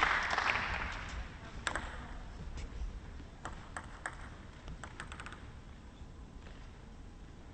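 Crowd applause dying away over the first second or so, followed by scattered light clicks and taps in the quiet hall, including a quick run of ticks about five seconds in.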